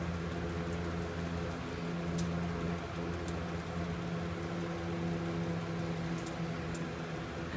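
Electric box fan running with a steady hum, with a few faint high ticks over it.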